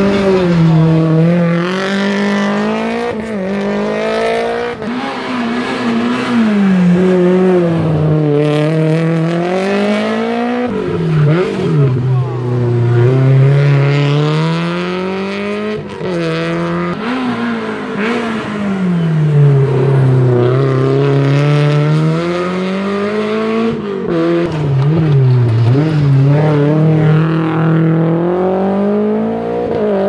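Rally car engines run hard on a tarmac stage. The engine note climbs under acceleration, drops sharply at each gear change, and falls away on braking, over and over as the cars take the hairpins.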